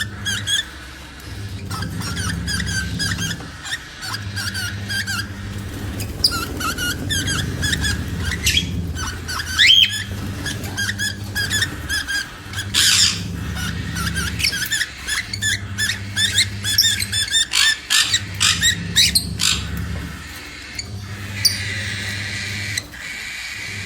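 Cockatiel chirping and warbling in a rapid string of short whistled and squeaky notes, some sliding up in pitch, vocalising during mating. A low drone underneath breaks off briefly about every second and a half.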